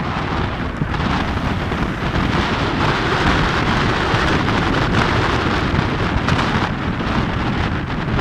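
Steady rushing road noise with a low rumble, like tyres running on a wet road heard from a following vehicle.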